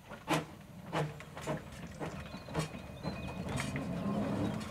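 Narrow-gauge steam locomotive moving off slowly, giving separate exhaust chuffs about one every half second to a second. A steady rumble of the engine and wheels builds up over the last second or two.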